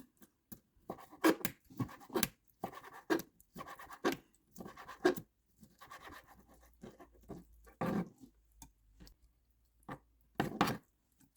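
Knife cutting food on a cutting board: a run of uneven scraping strokes, about two a second.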